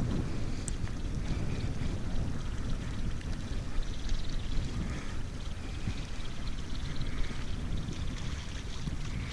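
Wind buffeting the microphone in a steady low rumble, over a thin hiss of outdoor noise.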